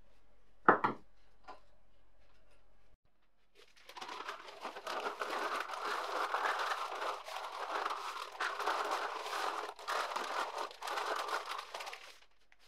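A single sharp click, then from about four seconds in, a sheet of brown kraft paper being crumpled and rubbed across a board, a dense crinkling and rustling for about eight seconds.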